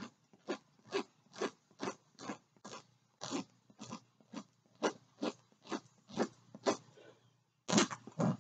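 Repeated short scratchy rubbing strokes, about two or three a second, as a diamond painting canvas is smoothed down by hand to press out air bubbles under its glued surface; a louder rustle of paper or plastic follows near the end.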